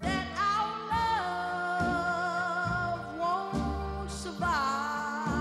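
A sung ballad playing: a singer holds long notes, sliding up into several of them, over a backing band with a bass line that changes about once a second.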